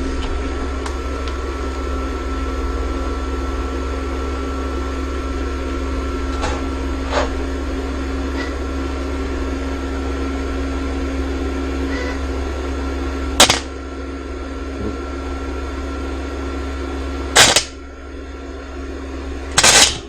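Century FC-90 flux-core wire welder humming steadily while powered, interrupted by three sharp clicks in the last third, after which the hum drops lower. It is running off a garage outlet on a 15 amp circuit, which it overloads.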